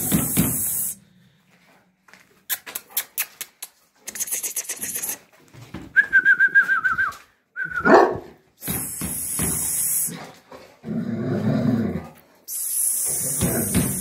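A dog whining and yelping: a wavering high whine about six seconds in, then a short sharp yelp. Between them come bursts of scratchy rustling and a quick run of clicks.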